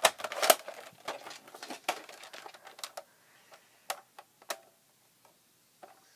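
Plastic clicks and knocks from handling a Mega Nerf blaster, busy for the first two seconds with the sharpest click about half a second in, then a few single clicks.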